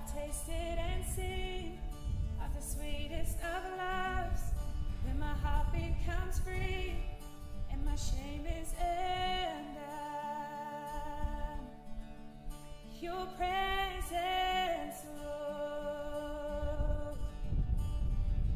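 Background music: a singer's voice with a wavering melody over steady instrumental chords.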